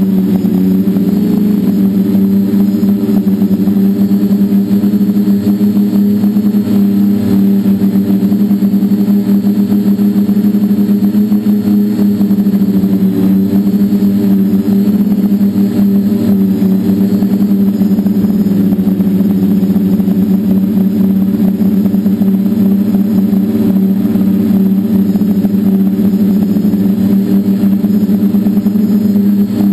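Multicopter's electric motors and propellers in flight, a loud, steady buzzing drone that wavers slightly in pitch as the throttle changes, heard from the camera mounted on the craft close to the spinning props.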